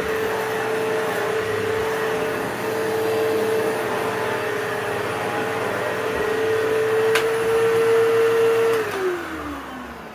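Upright vacuum cleaner with a 12-amp motor running with a steady whine, then switched off near the end, its pitch falling as the motor winds down. A sharp click comes a little before the shut-off.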